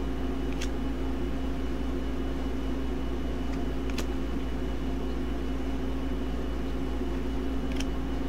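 Steady hum of a room air conditioner running. Over it come three short snaps, about three and a half seconds apart, as trading cards are flicked one by one from the front to the back of a hand-held stack.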